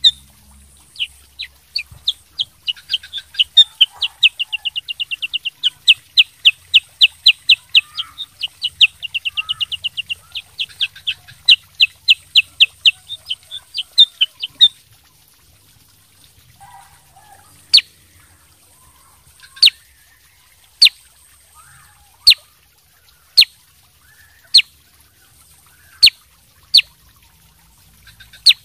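Black-headed bulbul (kutilang sutra) singing a fast run of sharp, high notes, several a second, for about fifteen seconds. It then gives single sharp notes about every second.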